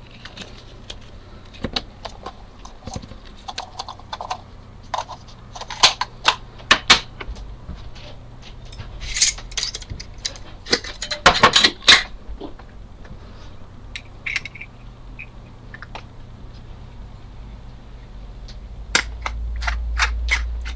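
Handling noise from a phone held against a knit sweater, with scattered sharp clicks and light clattering knocks of small objects being moved, densest around the middle. A low rumble of the microphone rubbing on cloth swells near the end.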